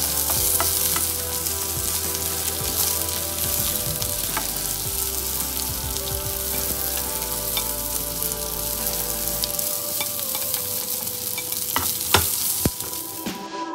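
Sliced onion sizzling in hot oil in a nonstick frying pan, stirred with a spatula that scrapes and clicks against the pan. Near the end come two louder knocks as garlic is tipped in.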